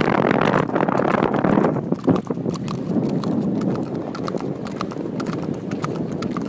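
Horses' hooves clip-clopping: a quick, uneven run of sharp clicks that stands out more clearly after about two seconds, over a steady rushing noise.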